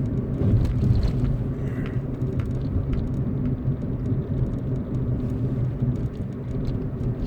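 Steady low rumble of a car in motion, heard from inside the cabin, with a couple of faint short sounds in the first two seconds.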